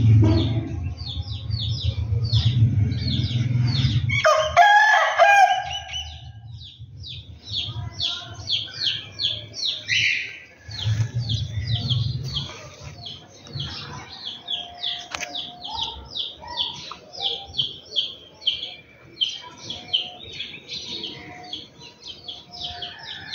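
A rooster crows once about four seconds in, a call of about two seconds and the loudest sound here. Small birds chirp quickly and steadily through the rest, over a low rumble in the first few seconds.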